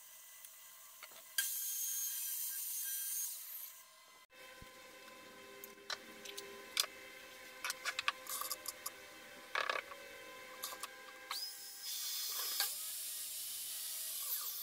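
A power tool runs for about three seconds, then light clicks and knocks of wood being handled, then a Ryobi miter saw starts with a high whine and cuts through a plywood panel near the end.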